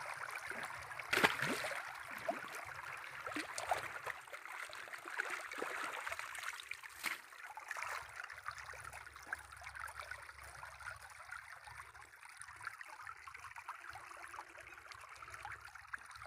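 Irrigation water rushing and gurgling through a cut in an earthen field channel's bank, with a few sharp knocks and splashes in the first half, the loudest about a second in; the flow grows fainter in the second half.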